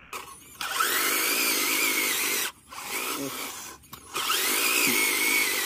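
Electric motor and gearbox of a radio-controlled 6×6 Kamaz dump truck whining under load as it drives, with a rising whine each time it spins up. The sound cuts out briefly twice and picks up again.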